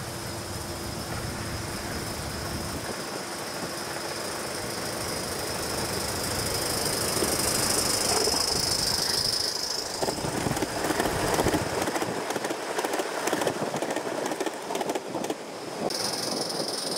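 Coal-fired miniature live-steam locomotive hauling a train on a raised club track, its wheels running over the rails with a steady high-pitched squeal, growing louder as it approaches.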